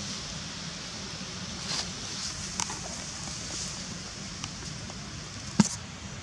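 A few short, sharp clicks and one louder snap near the end as a baby macaque grabs and tugs at the splintered wood fibres of a broken tree root, over a steady faint high hiss of forest ambience.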